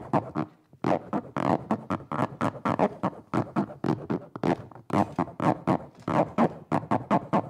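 Live improvised sound performance: a continuous, stuttering stream of short pitched bursts, several a second, vocal-like but with no clear words.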